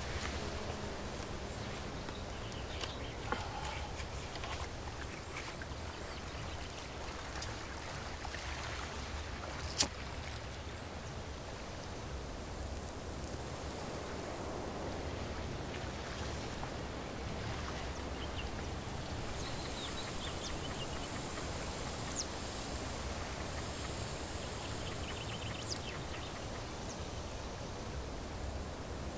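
Quiet outdoor lakeside ambience: a steady low rumble of wind with a faint hiss, broken by one sharp click about ten seconds in and a few fainter clicks.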